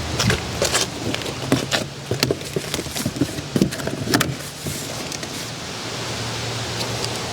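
Cardboard shipping carton being handled and pulled at: a quick run of knocks, scrapes and rustles for about four and a half seconds, then a steady low hum under a faint hiss.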